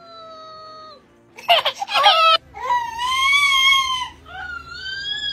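High-pitched wailing cries from a baby and a dancing cactus toy, which plays back sounds in a squeaky sped-up voice: a short harsh burst about a second and a half in, then two long wails that rise and fall.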